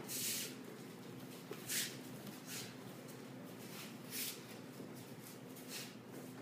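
Quiet room with a few short, soft rustles and brushes, about five in all, as people move in their training uniforms on the mats, over a faint steady low hum.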